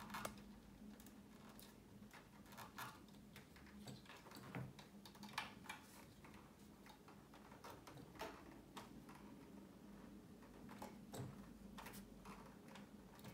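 Faint, irregular small clicks and taps of hands handling wires and small plastic parts at an amplifier's rear panel, over a faint steady low hum.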